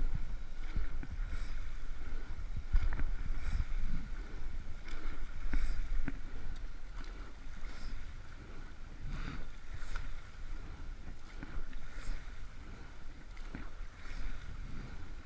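Rowing eight under way at a rate of 28 strokes a minute: oars knocking in their gates at each catch and finish, about once every two seconds, over the rush of water past the hull and wind on the microphone.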